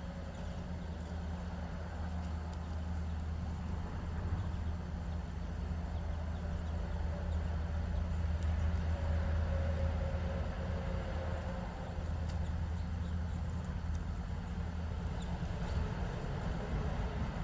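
Steady low rumble of background noise with a faint droning tone, louder through the middle and easing about two thirds of the way in.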